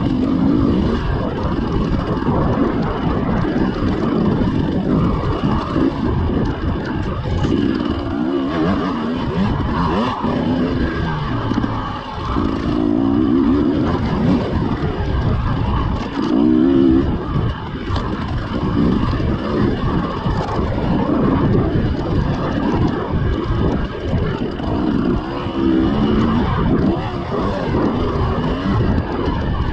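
KTM 300 EXC's single-cylinder two-stroke engine running under way on a dirt trail, the revs rising and falling repeatedly.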